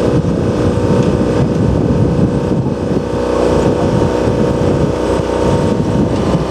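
Open-top double-deck electric tram running slowly toward the listener: a steady low rumble from its wheels on the rails, with the hum of its motors.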